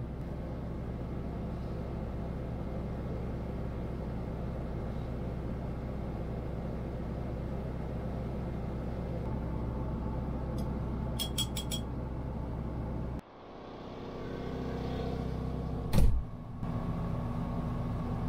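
Portable generator running with a steady hum. A few quick clicks come about two-thirds of the way in. After a sudden break the hum comes back, and a single sharp knock follows near the end.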